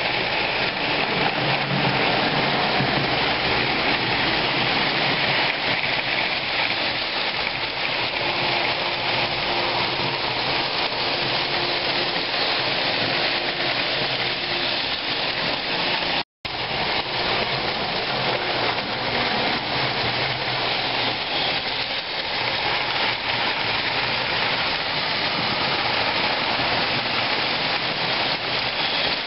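Several model trains running on three-rail track: a steady, dense rattle of wheels on the metal rails with the hum of their motors. The sound drops out completely for a split second about sixteen seconds in.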